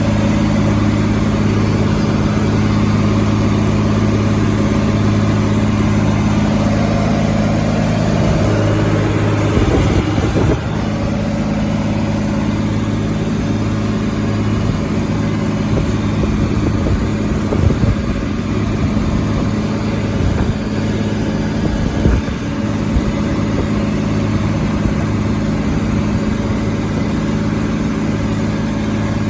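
Fendt Favorit 614 LSA Turbomatik E tractor's diesel engine running steadily under load while pulling a plough, holding an even pitch, with a brief dip in the sound about ten seconds in.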